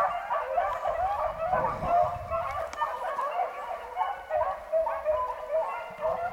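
A pack of beagles baying as they run a rabbit's trail: many short calls from several hounds overlapping without a break.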